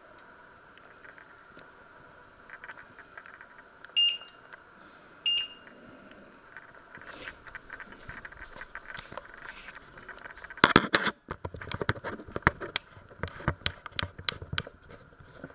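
Electric hob's touch controls beeping twice, short high beeps about a second apart, each one a key press setting the timer. Then a run of clicks, rattles and knocks from handling things on the kitchen worktop, loudest a little past the middle.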